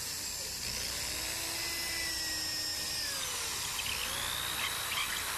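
Power drill running as it bores a hole through a small wooden board, its whine sliding up and down in pitch as it works through the wood.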